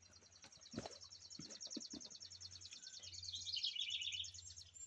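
Faint songbird song: a rapid, even high trill, joined about three seconds in by a lower chirping song, over a low steady hum, with a few soft knocks about a second in.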